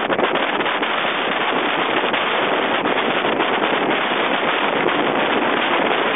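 Steady rushing wind noise on the microphone of a Pino tandem recumbent bicycle riding downhill at speed.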